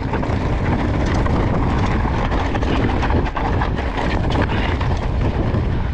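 Wind buffeting a GoPro microphone on a moving mountain bike, with the bike rattling and clicking over rough ground.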